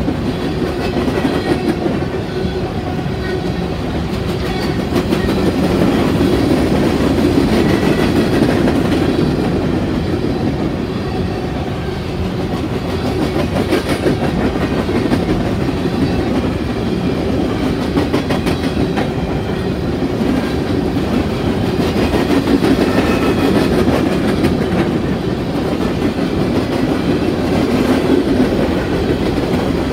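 Freight train of coal cars rolling past: a steady rumble of steel wheels on rail, with repeated clacks from the wheels.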